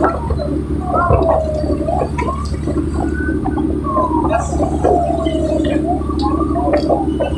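A fishing boat's engine runs steadily with a constant low hum. Voices on board call out over it, with several long, falling calls.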